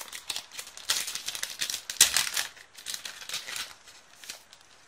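Foil Pokémon booster pack wrapper crinkling and rustling in the hands in irregular bursts, dying away near the end.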